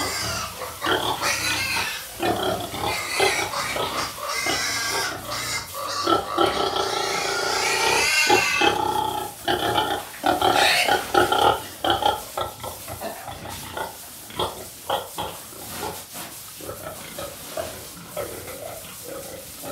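A group of pigs grunting and oinking irregularly, with a longer drawn-out squeal lasting two to three seconds about six seconds in; the calls grow sparser and quieter near the end.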